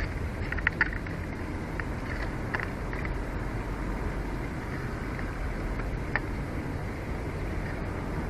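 Steady low outdoor rumble, with a few faint short ticks scattered through it.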